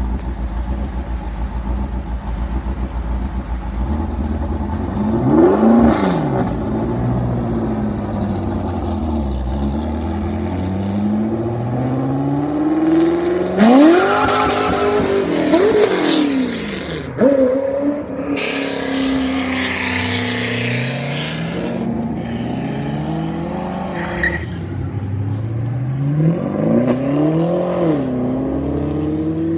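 Several performance cars accelerating away one after another, engines revving up and dropping back between gear shifts. The loudest pull comes about halfway through.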